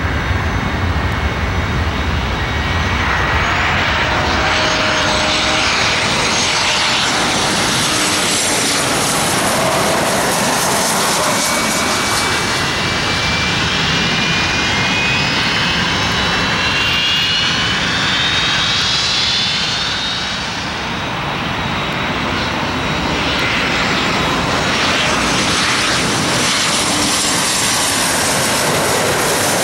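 Embraer E190 jets with General Electric CF34-10E turbofan engines, one passing low on approach and landing, then another on short final: a loud, steady jet rumble with a rising whine through the middle. The sound dips briefly about two-thirds of the way through.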